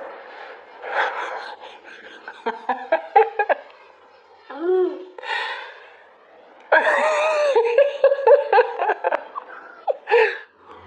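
Laughter in repeated bursts, heaviest about seven to nine seconds in, with a child's drawn-out 'mmm' in the middle.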